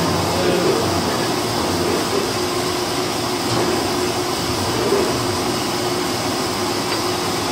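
Cincinnati metal shaper running slowly, its ram stroking back and forth with a steady machine hum and a slow, regular low pulse.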